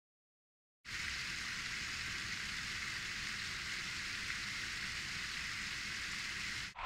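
Steady, hissy wind and trail noise picked up by a helmet-mounted action camera's built-in microphone during a mountain bike descent. It starts abruptly about a second in, after digital silence, and near the end cuts to another camera's duller recording of the same noise.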